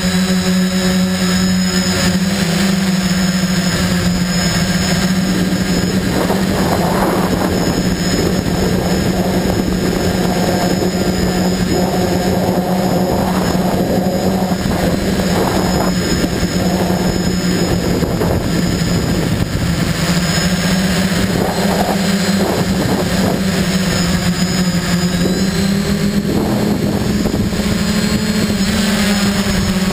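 FPV drone's electric motors and propellers buzzing steadily in flight, heard from the onboard camera, with the pitch rising a little near the end as the throttle goes up. Gusts of wind rush over the microphone now and then.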